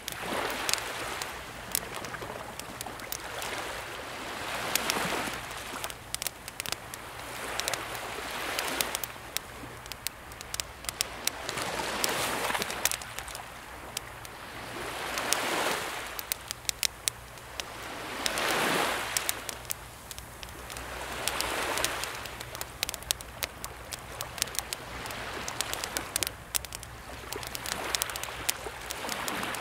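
Calm sea waves washing in every three to four seconds, over a wood campfire crackling with frequent sharp pops.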